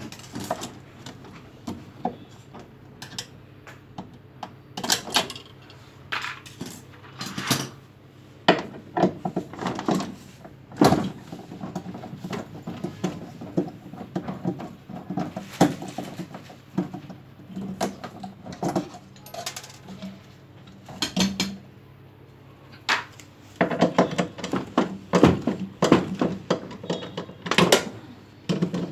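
Irregular metallic clinks, clatters and knocks of metal parts and tools being handled during work on a washing machine, over a steady low hum.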